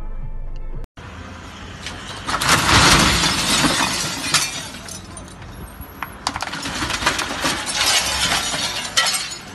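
Glass shattering and debris crashing as an SUV smashes into a glass-walled kiosk, loudest for about two seconds. Scattered clinks and cracks of broken glass and panels follow as it reverses out.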